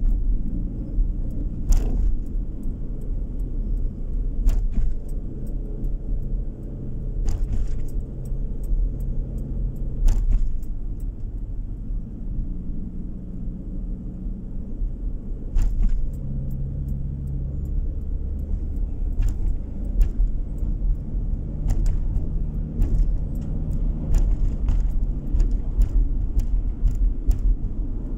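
Car driving along a road, heard from inside the cabin: a steady low rumble of engine and tyres with a faint engine hum. Short sharp clicks and rattles break in now and then, about a dozen times at irregular spacing.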